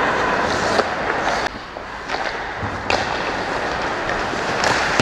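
Ice hockey play on the rink: hockey skate blades scraping and carving the ice, with a few sharp clacks.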